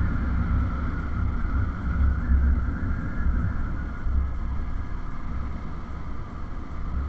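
Yamaha motorcycle running along at steady road speed, with the engine and a low, uneven wind rumble heard from the rider's position.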